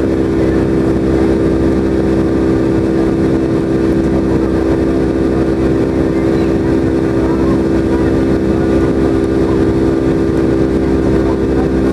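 Boeing 757's Rolls-Royce RB211 turbofan engines heard from inside the cabin in flight: a steady, loud rush of engine and air noise with a strong, even hum running through it.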